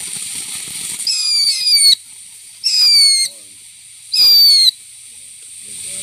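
Beehive firework fountain spraying sparks with a hiss, then letting out three loud, shrill whistles of under a second each, each sliding slightly down in pitch.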